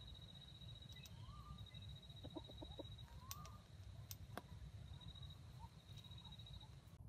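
Junglefowl rooster giving a quick run of about five soft, low clucks, faint, over a steady high-pitched trill.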